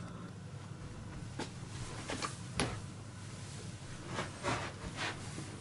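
A few light clicks and knocks with some rubbing, from a hand handling things at the model railway layout, over a faint steady low hum.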